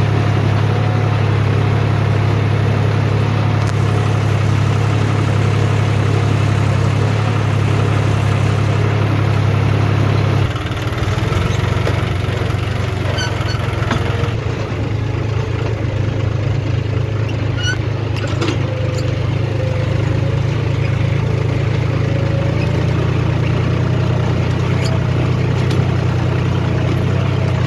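John Deere 5310 tractor's three-cylinder diesel engine running steadily while pulling a reversible mouldboard plough. About ten seconds in the engine note shifts and briefly drops in level, a few short knocks follow, and it settles back into a steady run.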